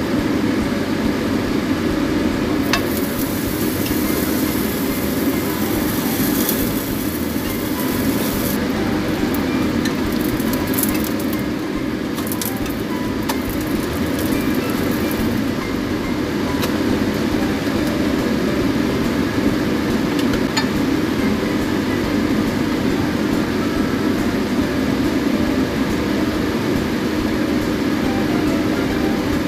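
A steady, even droning noise with a few faint clicks scattered through it.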